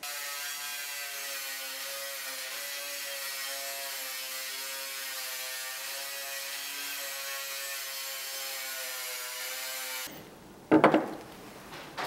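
Bench grinder motor running with a buffing wheel spinning: a steady hum with a hiss above it. It cuts off abruptly about ten seconds in, and a moment later there is one loud knock.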